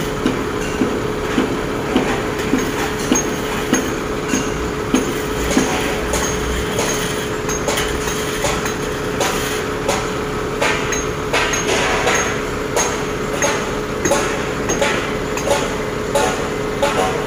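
Steady hum of a heavy diesel engine running, over repeated sharp metallic clinks and knocks like hammer blows on steel. The knocks come about twice a second from roughly ten seconds in.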